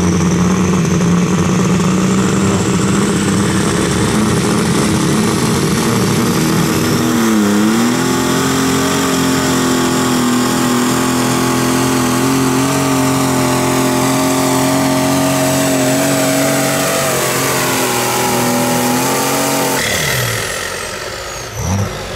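Pulling vehicle's engine running at full throttle under load during a pull. The pitch dips briefly and recovers about seven seconds in, then holds steady until the engine is shut down about twenty seconds in, leaving a high whine that falls away.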